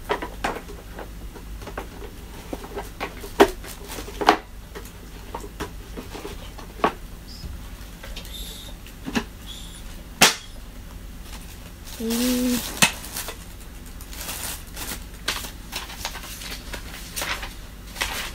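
Plastic parts of a Samsung canister vacuum cleaner being handled and fitted together: scattered sharp clicks and knocks, with paper rustling near the end.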